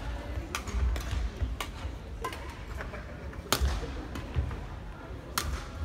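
Badminton rackets striking a shuttlecock during a rally: a string of sharp, irregular hits about half a second to two seconds apart.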